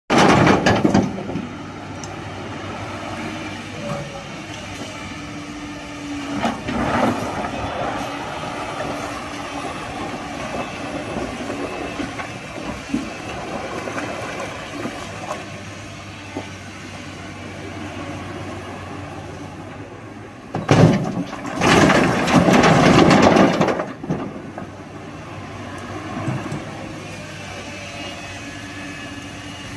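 Excavator diesel engine running steadily under load, with loud clattering crashes of boulders dropped into a tipper truck's steel bed: one at the start, a shorter one about seven seconds in, and a long rattling spell a little past twenty seconds.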